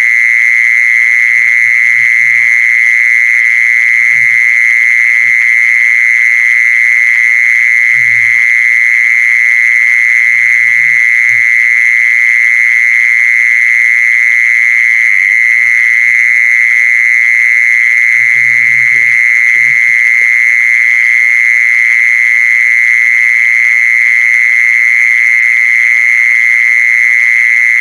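Recorded animal-calling lure sound: one unbroken, high-pitched trill held steady and loud, with a few faint low knocks now and then.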